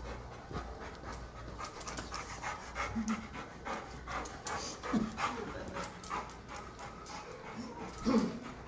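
A dog panting quickly, with a few brief louder sounds about a third of the way in, halfway through and, loudest, near the end.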